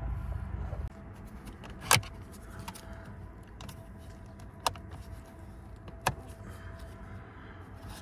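Sharp plastic clicks and taps from a Mercedes W203 combination switch housing being pried off the steering column with a screwdriver. There are three or four separate clicks, the loudest about two seconds in.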